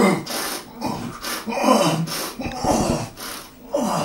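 A man's harsh, rasping growls in repeated bursts, roughly one a second: staged monster noises for a gore take.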